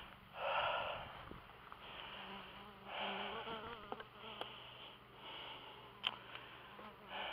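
Honey bees buzzing around an opened hive, a low steady hum with a bee's drone wavering in pitch as it flies close by about three seconds in. Several short rushes of hissing noise come and go over it.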